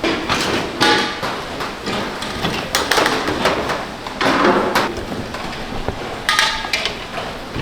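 Kitchen clatter: a run of irregular knocks and clanks from cookware and utensils being handled, a few of them ringing briefly like struck metal.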